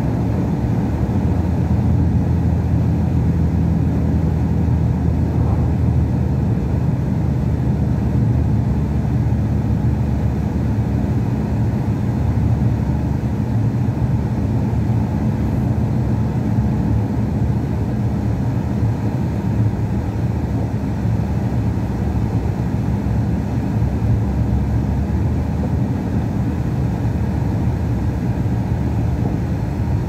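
Truck engine running at a steady cruise with tyre and road noise, heard from inside the cab as a steady low drone.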